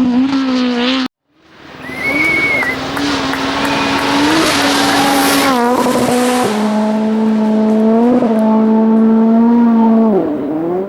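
Rally car engines at high revs: the first cuts off abruptly about a second in, then a second car comes in and holds high revs with stepped gear changes. A brief high squeal early on the second car and a burst of hiss midway; near the end the revs dip and climb again before fading.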